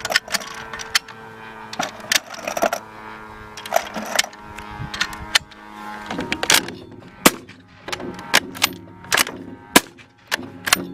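Firearm shots through a TE-Titan suppressor: a long series of sharp reports at uneven spacing, about one to two a second.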